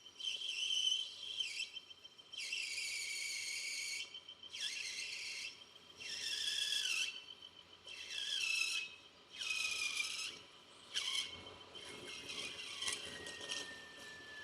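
Lathe cutting tool squealing against a metal workpiece in a series of short cuts, each about a second long with a high whistling tone, several falling in pitch as the cut ends. Near the end a single steady whine drifts slowly lower.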